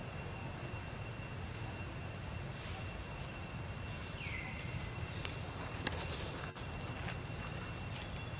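Outdoor forest ambience: a steady low rumble and a thin steady high whine. A short call slides downward about four seconds in, and a few sharp high squeaks or clicks come around six seconds in.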